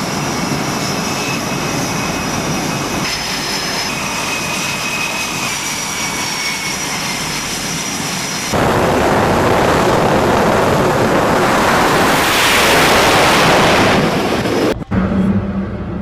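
Jet aircraft engines running: a steady rush with thin high whistling tones. About eight and a half seconds in, a sudden, much louder roar of jet noise builds for several seconds and then cuts off abruptly near the end, giving way to a low steady hum.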